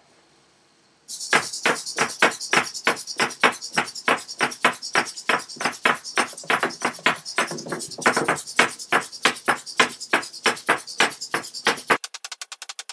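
Hexapod robot's hobby servo motors clicking and buzzing in a steady rhythm, about three to four strokes a second, as the legs run a rotation test. Near the end the rhythm jumps to about ten strokes a second, thinner and higher, as the recording plays sped up.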